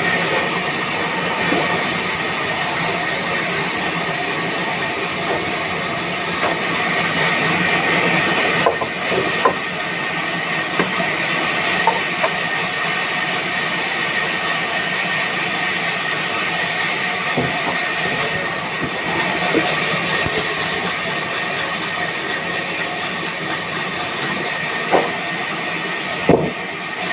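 Band sawmill running, with a steady hissing noise and a constant high whine. The hiss grows and fades a few times, and a few sharp knocks come near the end.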